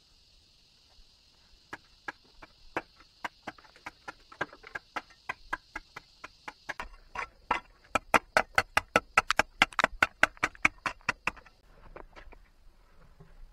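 Repeated sharp chopping strikes, about two a second at first, then faster and louder at about four a second, stopping near the end. A steady high-pitched hiss runs underneath and stops at about the same time.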